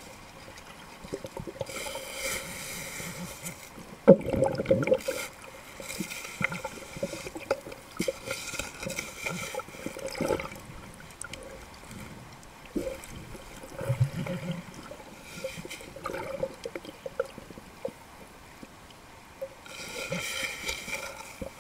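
Water gurgling and sloshing around a camera held underwater, muffled by its housing, with scattered irregular clicks and knocks. The loudest knock comes about four seconds in.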